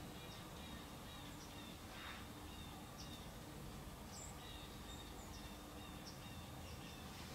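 Faint outdoor ambience in autumn woods: small birds calling in runs of short, high chirps over a low steady background hiss.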